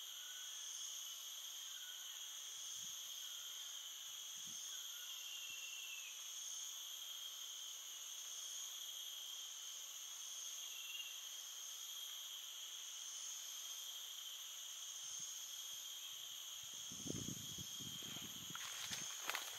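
Steady chorus of insects shrilling at several high pitches together, with a few soft knocks and rustles near the end.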